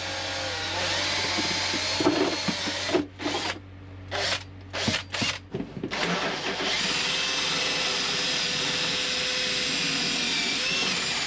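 Electric drill on a home-made extended bit boring through the freezer insulation and a fibreglass bulkhead. It runs steadily, then starts and stops in short bursts, then settles into a long steady run with a whine and cuts off near the end.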